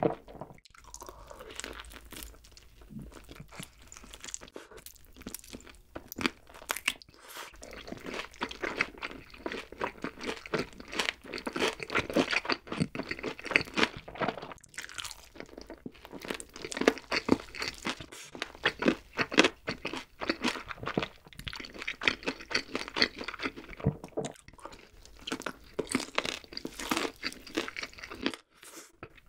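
Close-miked crunching and chewing of a crispy, sauce-coated fried chicken drumstick: dense crackly bites and chews, softer for the first several seconds, then louder and busier from about eight seconds in.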